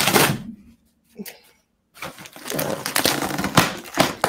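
Cardboard box being torn open by hand: a short rip at the start, then a longer stretch of ripping and crinkling from about two seconds in.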